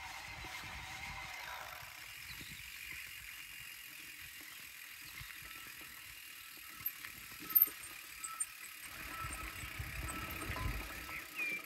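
Quiet outdoor ambience with a few faint bird chirps, some short knocks in the middle, and a low rumble rising in the last few seconds.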